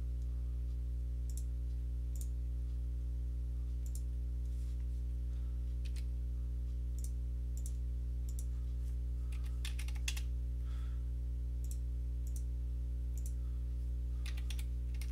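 Computer mouse clicking every second or two, with quick runs of clicks or keystrokes about ten seconds in and near the end, over a steady low electrical hum.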